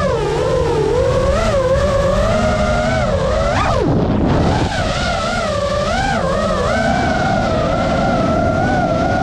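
FPV quadcopter's brushless motors and propellers whining, the pitch swooping up and down with the throttle. A sharp rise about three and a half seconds in drops away quickly as the throttle is cut, then the pitch holds steady through the second half. A constant rumble of wind on the onboard microphone sits underneath.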